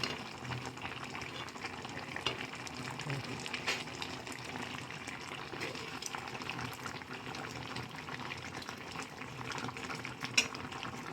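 A pot of thick curry bubbling as it simmers, with small pops scattered through a steady bubbling hiss.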